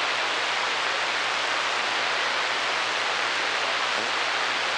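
CB radio receiver giving steady static hiss on channel 28, between voice transmissions from distant stations.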